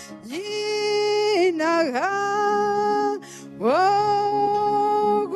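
A woman singing into a microphone: long held notes, each reached by a slide up in pitch, with a short break in the middle. Low steady notes sound underneath.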